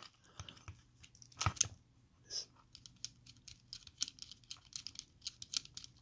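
Small metal clicks and light scraping of hand tools working on a round Master padlock as it is taken apart, irregular, with a few louder clicks in the first half.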